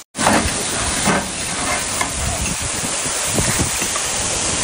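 Large metal pot of chicken curry simmering over a wood fire while a ladle stirs it, with small knocks of the ladle against the pot over a steady hiss of cooking and rushing water.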